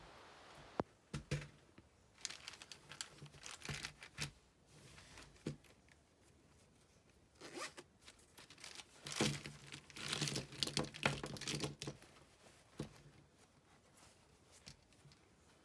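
Zipper on a small fabric pencil pouch being pulled along in several short, rasping runs, with the cloth rustling as it is handled. The longest and loudest run of zipping comes a little past the middle.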